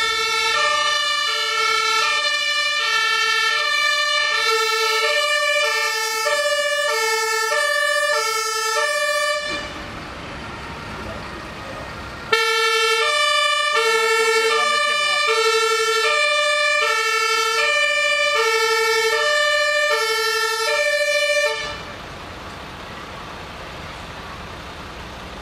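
German fire engine two-tone siren (Martinshorn) sounding the alternating high-low "tatü-tata", about one high-low pair a second. It sounds in two runs of about nine seconds, stopping briefly for about three seconds in between.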